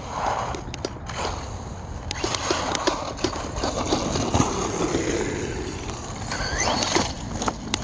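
Redcat Volcano RC monster truck on a 4S LiPo driving over cracked asphalt: a steady rolling rumble from its tyres with many scattered clicks and knocks as it rattles over the rough surface. About six and a half seconds in, a short rising whine as the electric motor speeds up.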